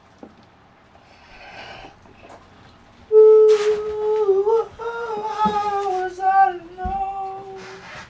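A voice singing: a long held note that wavers slightly in pitch, coming in suddenly about three seconds in, followed by a few shorter notes and ending near the end.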